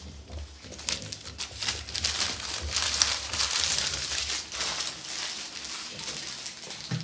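Newspaper crinkling and rustling under puppies' paws, a dense run of small crackles that is busiest in the middle.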